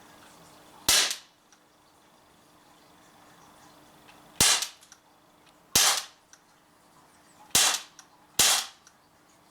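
Gas-powered Cybergun FN Herstal M4 BB gun firing five single semi-automatic shots of 4.5 mm steel BBs. Each is a sharp pop with a short tail, unevenly spaced; the last two come less than a second apart.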